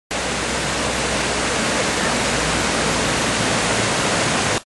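Water rushing steadily, an even full hiss with no distinct splashes, cutting off abruptly just before the end.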